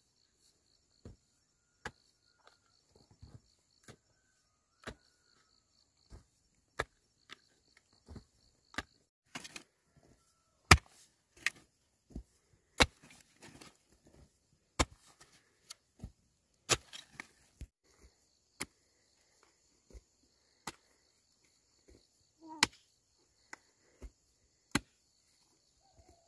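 Sharp chopping strikes at irregular intervals, roughly one a second and coming thicker in the middle, over a steady insect trill that drops out for a stretch mid-way.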